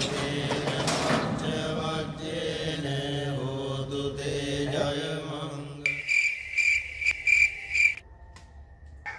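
Chant-like vocal music over a steady low drone, then a cricket chirping loudly in rapid pulses for about two seconds, fading to a faint steady high trill.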